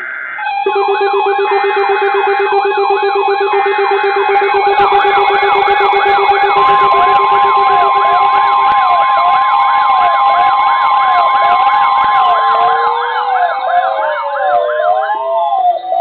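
Several NOAA weather radios alarming at once for a severe thunderstorm warning. A short high data burst comes at the start, then overlapping electronic alert tones: siren-like warbles, a pulsing low beep that stops about halfway, and zig-zag sweeps. A steady 1050 Hz attention tone sounds for about nine seconds and cuts off near the end.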